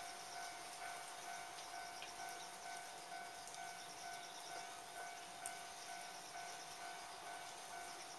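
Distant Japanese level-crossing alarm ringing in a steady repeating pattern, about two rings a second, over a soft hiss of rain.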